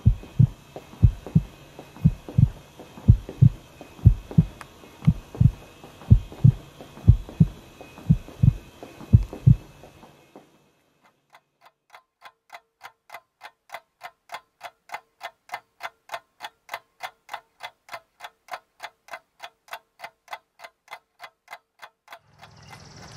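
A slow heartbeat, a low double thump about once a second, fades out about ten seconds in. After a moment of silence a clock ticks evenly, a few ticks a second, growing louder. Just before the end a steady rushing noise rises.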